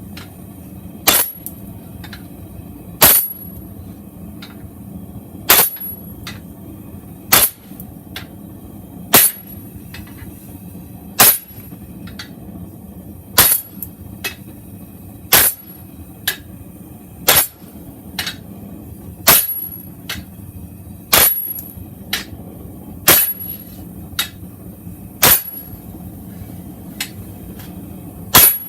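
Hammer blows on hot steel at the anvil, setting in and isolating the handle section of a forged chef-knife blank: a heavy, ringing strike about every two seconds, with lighter taps between, over a steady low hum.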